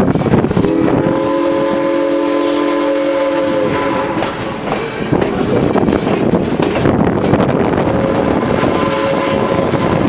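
Steam locomotive's chime whistle blowing one long blast of about three seconds, with a fainter blast near the end. Under it is the steady rolling clatter of the passenger car on the rails.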